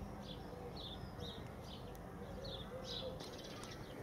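A small bird chirping, short high notes about twice a second, over a steady low rumble.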